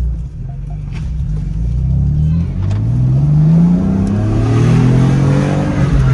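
2018 BMW M3's twin-turbo inline-six accelerating, heard from inside the cabin. The engine note rises, dips at a gear change about two and a half seconds in, rises again, then levels off.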